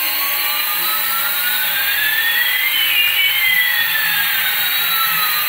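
Small electric motors and coaxial rotors of a toy RC helicopter whirring with a steady high hiss. Through it, two thin tones glide, one rising and one falling, crossing about halfway.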